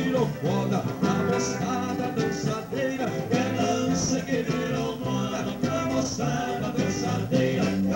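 Live band music: electric guitar with bass and drums keeping a steady beat, and a man singing.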